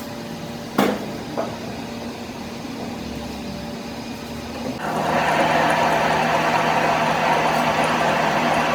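A steady machine hum with two sharp metallic knocks early on, then a louder machine starts up about five seconds in and runs steadily with a constant hum.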